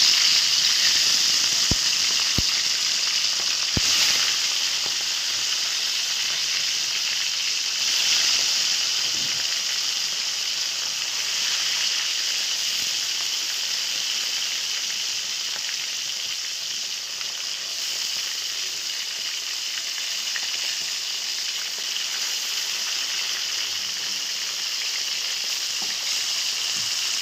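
Marinated fish pieces frying in hot oil in a kadai: a steady sizzle, with a few sharp pops in the first few seconds. The fish is being half-fried before going into a fish gravy.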